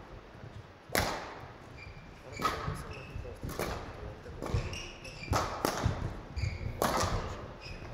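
Badminton rally: rackets striking the shuttlecock about five times, one sharp crack every second or so, ringing in a large hall. Between the hits, shoes squeak briefly and feet thud on the court floor.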